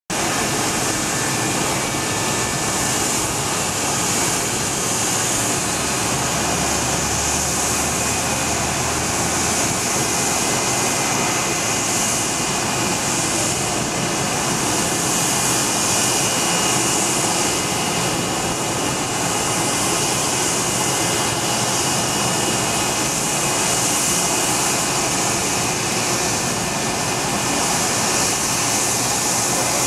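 McDonnell Douglas MD-83 airliner's twin rear-mounted Pratt & Whitney JT8D turbofans running steadily at constant power. A loud, even rushing hiss with a thin high whine, holding the same level throughout with no spool-up.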